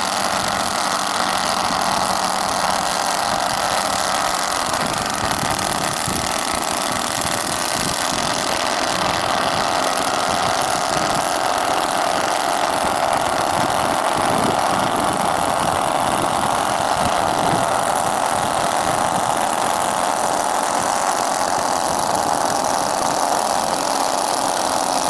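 The four engines of a large-scale radio-controlled B-17 model run steadily at low power as it taxis, giving a continuous even drone.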